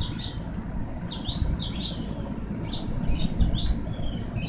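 Small birds chirping in short clusters of quick, high calls, over a steady low background rumble.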